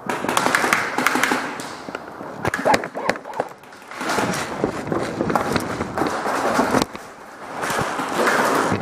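Hurried footsteps and gear handling noise on a hard floor, with many scattered clicks and knocks and two brief lulls.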